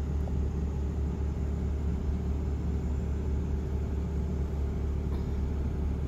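Car moving slowly, heard from inside the cabin: a steady low engine and road rumble with no changes.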